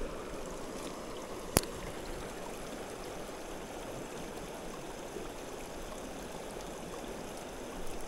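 Steady rush of flowing river water, with a single sharp click about a second and a half in.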